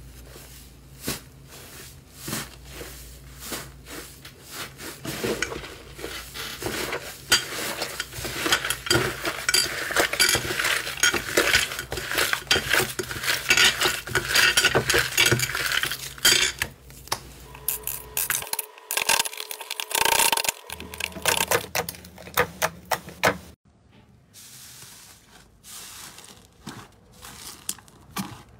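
Hands kneading, squeezing and tearing a crumbly teal 'tofu dregs' slime, making dense crackling, clicking and squelching that grows loud and busy for several seconds. Near the end it changes to softer, sparser squishing clicks as a glossy green slime is pressed.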